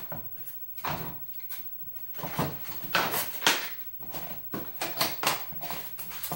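Handling noise from the 3D printer kit's frame panels, covered in brown protective paper, being lifted out of and knocked against a polystyrene foam packing tray: irregular scraping, rubbing and knocks, the loudest about three and a half seconds in.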